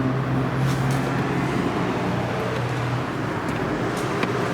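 A car engine running steadily with a low hum and a few faint clicks.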